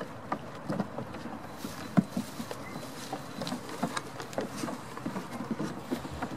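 Goat hooves knocking and scraping on loose plywood boards laid over mud: a run of irregular light taps, with one sharper knock about two seconds in.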